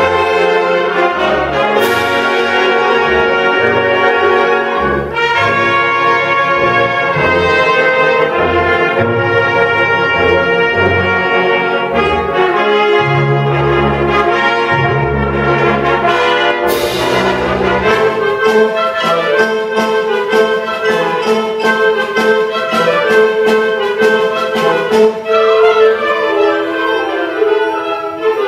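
High school concert band playing, brass to the fore with woodwinds and low bass notes under sustained chords. Two crashes ring out, about two seconds in and just past the middle, and after the second the bass drops out and quick, even percussion taps carry on under the band.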